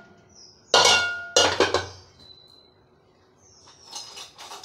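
Aluminium idli-steamer cookware clanking as the opened steamer is handled: two loud metal clanks with a ringing tone about a second in, then a few lighter clinks near the end.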